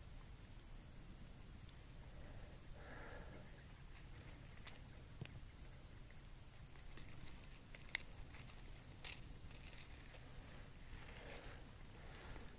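Steady high-pitched insect chorus, with a few sharp metallic clicks of pliers and lure hooks as a small bass is unhooked, and brief rustling in the grass.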